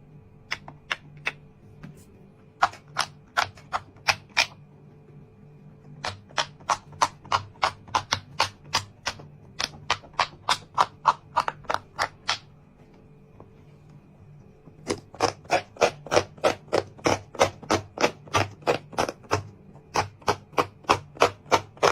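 Silicone pop-it fidget toy being pressed bubble by bubble, a quick run of sharp pops at about four a second. The popping comes in bursts, with a longer pause about two-thirds of the way through before it resumes.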